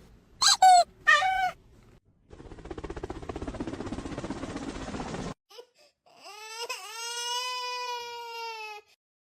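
A cat vocalising: a few short meows, then a rasping, rapidly pulsing noise for about three seconds, then one long drawn-out meow, like a wail.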